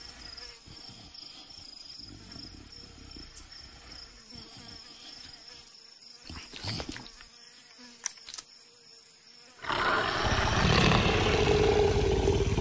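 Faint insect buzzing, then about ten seconds in a cartoon leopard gives a loud, continuous roar.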